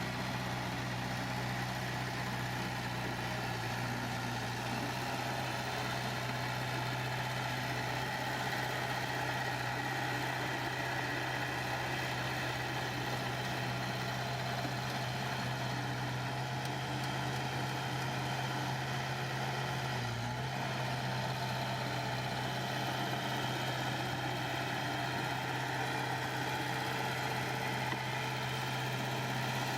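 Diesel engine of heavy construction machinery running at a steady speed, a constant low hum with only a brief wobble about two-thirds of the way through.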